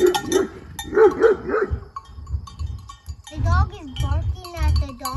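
A donkey braying: a run of short calls, then from about three seconds in the loud, alternating hee-haw, each deep exhaled note followed by a higher, gliding one. Small bells tinkle steadily throughout.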